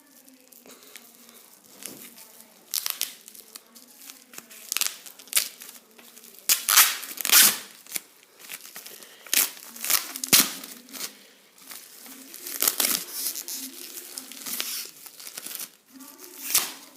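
Packaging crinkling and tearing as a package is opened by hand, in irregular bursts that are loudest near the middle.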